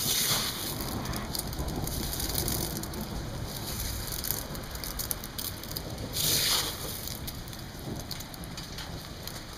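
Hail and rain pelting down in a dense crackle of many small hits, swelling louder at the start and again about six seconds in.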